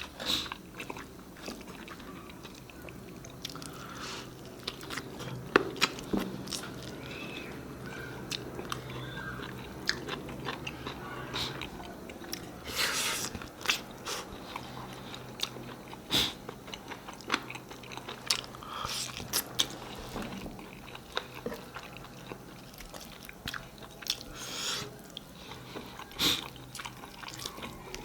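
Close-miked eating: chewing and biting, with many short sharp clicks and a few longer wet smacks through the stretch.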